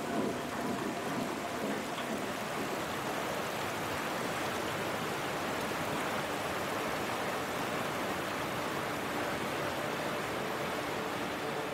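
Fast, turbulent mountain river in flood, rushing with a steady, even noise.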